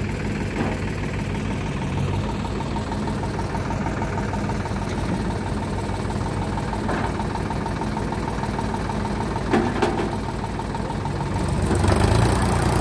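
52 hp Sonalika Sikandar DI 50 RX tractor's diesel engine running steadily with a knocking clatter, growing louder near the end as it is throttled up. There are two short knocks about nine and a half seconds in.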